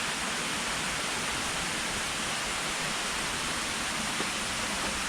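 Steady rushing of falling water from a waterfall, an even hiss that holds the same level throughout.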